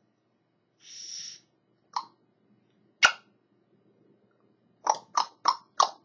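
African grey parrot making short mouth sounds: a brief breathy hiss, then a click and a sharp smacking click, then a quick run of about six short clicking pops at roughly three a second.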